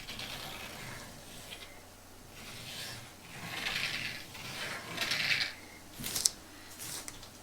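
Close-up handling sounds of small objects: about five rubbing or scraping strokes, with a couple of sharp clicks about six seconds in.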